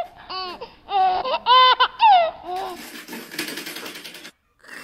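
A child laughing in a run of high-pitched giggles, followed by about a second and a half of steady hissing noise.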